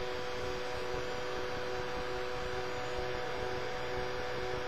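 Steady background hiss with a constant hum, an unchanging room tone with no distinct events.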